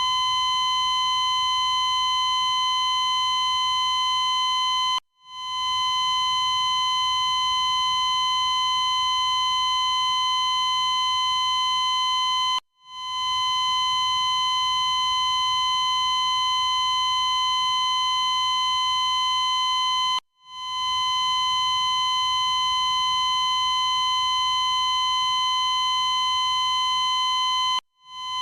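Cardiac monitor's continuous high-pitched flatline tone, the steady unbroken beep that signals no heartbeat detected. It glitches, cutting out abruptly four times about every seven and a half seconds and swelling back in each time.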